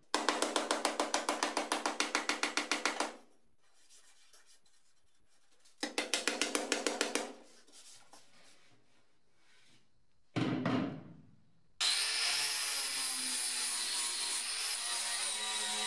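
Fast hammer blows on the sheet-steel floor of a car body, about six a second, in two runs, shaping a welded-in patch panel. About twelve seconds in an angle grinder starts and runs steadily against the metal.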